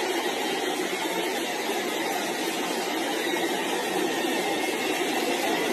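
Large stadium crowd cheering: a dense, steady wash of many voices with no single voice standing out.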